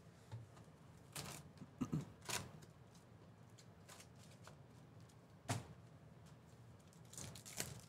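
Trading cards and foil card packs being handled and set down on a padded mat: a scattering of brief, soft rustles and taps, the loudest about five and a half seconds in.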